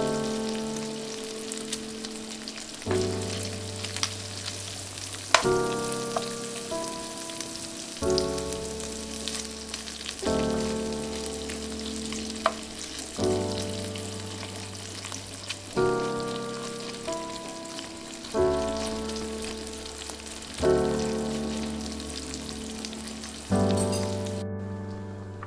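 Sliced bacon and garlic sizzling and crackling in a hot nonstick frying pan, stirred with a spoon. Under it runs background music of slow chords, each struck and fading, changing about every two and a half seconds. The sizzle cuts off just before the end.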